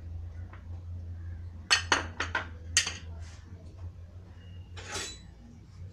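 Kitchen dishes and utensils clinking: a quick run of sharp clinks about two seconds in, and another near the end. A low steady hum runs underneath.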